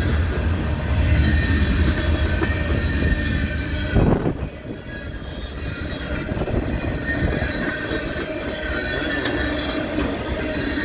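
Train rolling past, its railcar wheels rumbling with faint steady wheel squeal. A sudden loud thump comes about four seconds in, after which the deep rumble eases.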